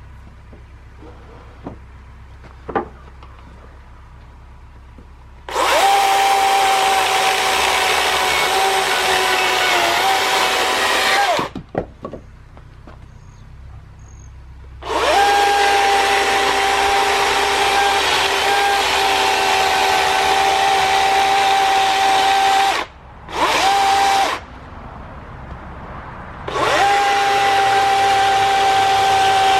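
DEWALT 60V cordless electric chainsaw running in bursts while cutting brush: a steady high motor whine, three long runs of about six to eight seconds and one short blip, with pauses between. The pitch dips slightly a few times.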